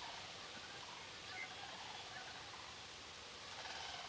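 Faint outdoor ambience in the woods: a steady hiss, with one faint short chirp about a third of the way in.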